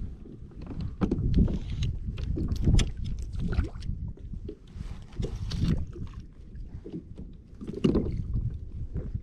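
Sea water slapping and splashing irregularly against a plastic kayak hull, over a steady low rumble of wind on the microphone.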